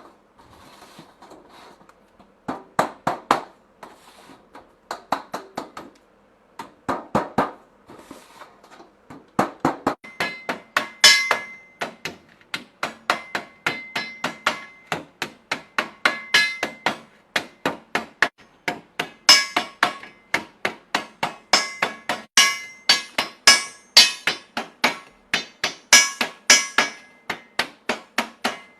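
Hammer blows: scattered groups of strikes at first, then from about ten seconds in a fast, steady run of about three strikes a second, each with a ringing metallic tone.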